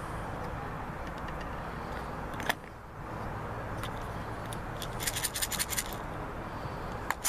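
Small hard clicks and light clinks as a brass fitting and a round tin are handled and lifted out of a small wooden box, with a quick flurry of clicks about five seconds in, over a steady low hum.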